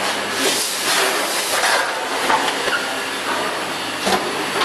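Automatic feed-bagging machine with a four-head weigher running: a steady mechanical noise broken by short sharp bursts several times.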